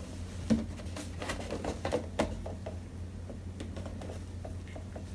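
Scattered light clicks and rustles of things being handled, over a steady low hum.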